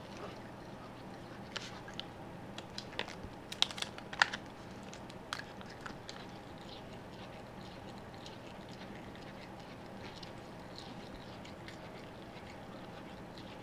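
Scattered small clicks and crinkles of a roll of packing tape and loose plastic wrap being handled by a pet monkey, with two sharper clicks about three and a half and four seconds in, then only faint ticks.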